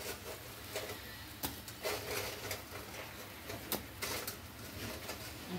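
Bread pieces deep-frying in hot ghee in a steel pot: a steady sizzle with irregular pops and crackles, a few each second.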